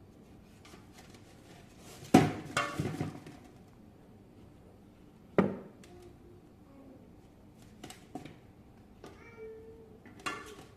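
Two sharp clattering knocks, like hard objects or dishes being knocked, about two seconds in and again about five seconds in, followed by a cat's short meow near the end.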